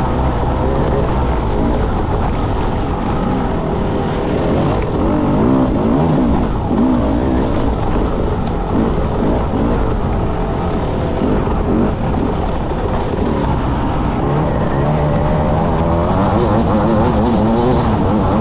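Enduro motorcycle engine running hard off-road, its revs rising and falling continuously as the throttle is worked, over a steady rushing noise.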